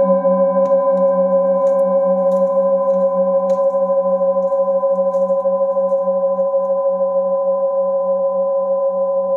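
Several singing bowls ringing together in one long sustained chord, the lowest tone pulsing with a slow, even beat. A few faint taps sound in the first few seconds.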